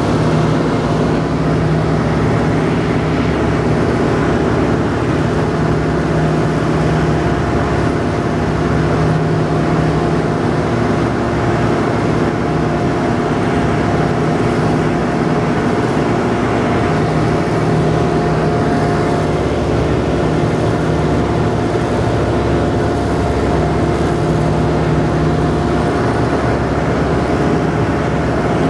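A Boeing B-17G's four Wright R-1820 Cyclone nine-cylinder radial engines running steadily at climb power, heard inside the fuselage as one loud, even drone with a few steady held tones.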